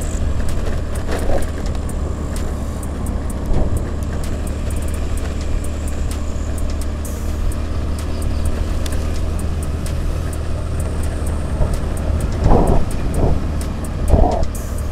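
Motorbike being ridden, heard from the rider's camera: a steady low drone of engine and road noise, with a few short louder rumbles near the end.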